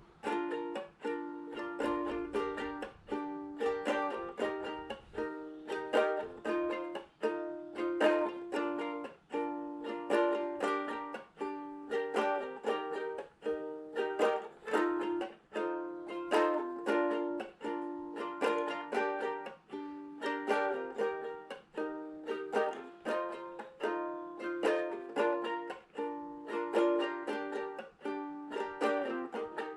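Background music: a plucked string instrument, ukulele-like, played in a steady rhythm.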